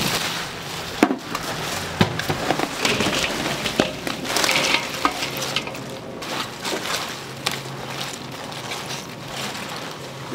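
Food being worked in a commercial kitchen: a steady wet, sizzling or rustling hiss with a few sharp clacks of utensils or containers.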